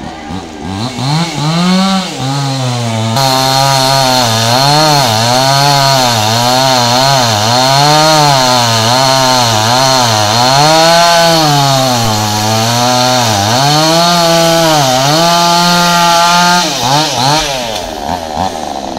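Proquip MS 5800 two-stroke chainsaw revving up and cutting through a tamarind trunk. Its engine pitch rises and sags again and again as the chain bites into the wood. The saw drops back toward idle near the end.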